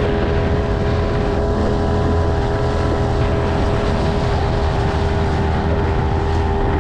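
Outboard motor of a small open fishing panga running steadily at cruising speed, a constant engine hum with no change in pitch, under the rumble of wind and water on the moving boat.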